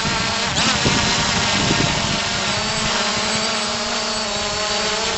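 Quadcopter drone's propellers whining steadily at a constant pitch, with wind buffeting the microphone underneath.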